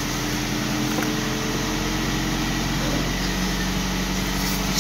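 Steady motor hum made of several steady tones, like an engine idling; one of the higher tones drops away about three seconds in.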